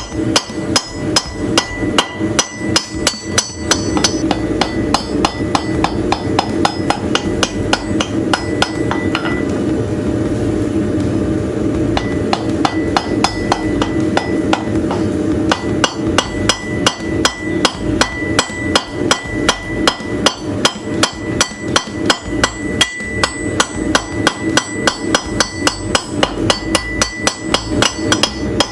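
Hand hammer striking a hot railroad spike on an anvil in steady, rapid forging blows, about three a second, with a steady ringing tone and a low hum underneath.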